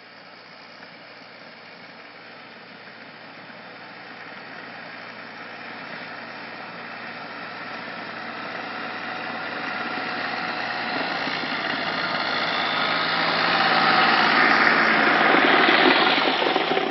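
Tractor engine running and drawing steadily closer, growing louder throughout and at its loudest near the end.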